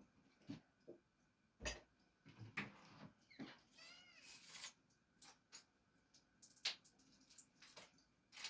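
Faint, scattered knocks and clicks of things being handled, with a short squeaky pitched sound that wavers up and down about four seconds in.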